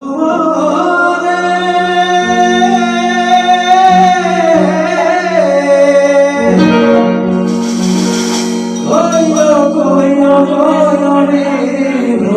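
Electronic keyboard music playing the intro of a Bengali folk song: a sliding melody over a steady held low note, with a brief hiss about eight seconds in.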